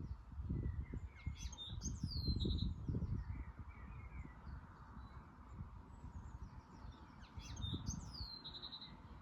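A small songbird sings the same short phrase twice, about a second and a half in and again near the end: a few quick notes, a falling whistle and a brief buzzy trill. Wind buffets the microphone throughout, strongest in the first few seconds.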